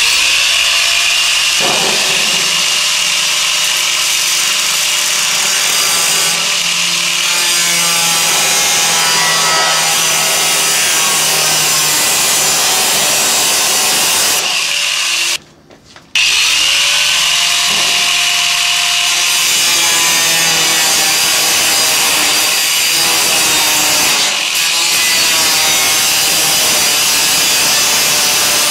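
Angle grinder with a cut-off disc cutting through sheet-metal ductwork: a loud, harsh grinding screech whose pitch wavers as the disc bites. It stops for under a second about halfway through, then carries on.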